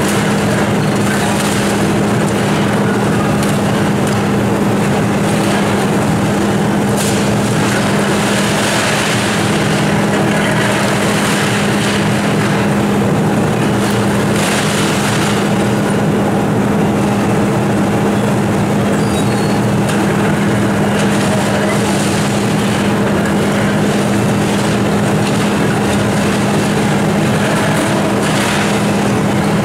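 Volvo EC290C tracked excavator's diesel engine running steadily under hydraulic load, with a constant hum. Several times, brick and masonry crumble and fall as the arm pulls the building down.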